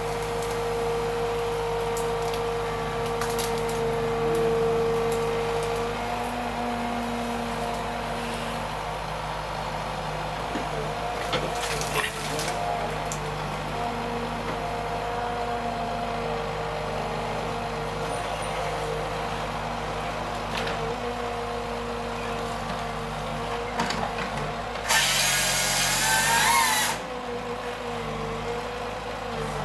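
Wheeled forestry harvester with its engine running steadily while the boom works. A couple of sharp cracks come about halfway through, and near the end the felling head's chain saw bar cuts through a tree trunk in a loud hissing burst lasting about two seconds.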